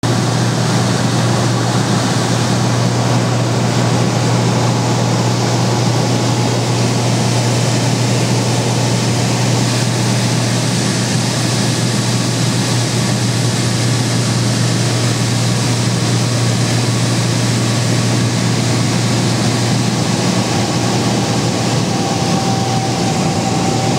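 Single-engine light aircraft's engine and propeller droning steadily in flight, heard inside the cockpit, with a constant hiss of air over the cabin.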